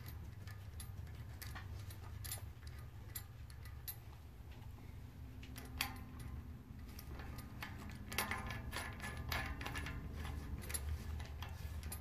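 Metallic clicking and clinking of an 11-speed 11-50 bike cassette and its lockring being threaded onto the rear hub by hand: scattered clicks at first, then rapid clicking from about two-thirds of the way in.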